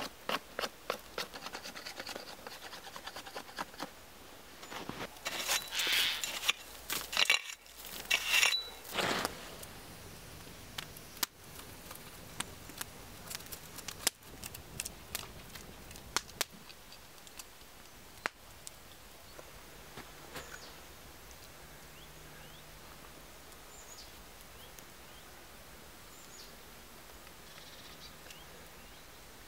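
A knife shaving a wooden stick in quick, rapid strokes, then a few louder scrapes. Later come scattered knocks of a knife on a wooden cutting board, then only quiet outdoor background.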